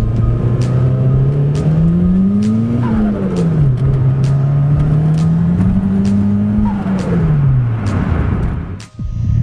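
A turbocharged Suzuki Swift GTI's 1.3-litre G13B four-cylinder engine is under throttle and the revs climb twice. Each time the throttle is lifted the revs fall and a falling turbo whistle follows. Near the end comes a rush of turbo flutter, compressor surge against the closed throttle.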